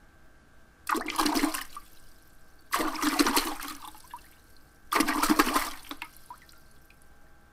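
Three watery whoosh sound effects, about two seconds apart, each a rushing splash of about a second that fades away.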